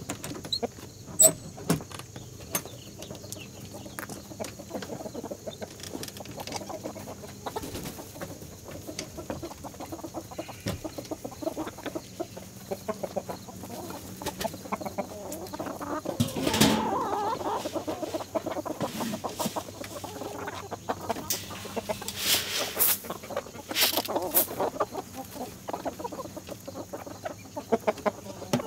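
Chickens clucking around the farmyard, a scatter of short calls throughout, with a louder burst of calls and noise about halfway through and a few sharp noisy sounds a little later.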